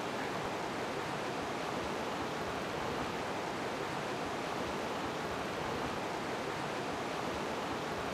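Shallow river running over a stony bed: a steady rush of flowing water.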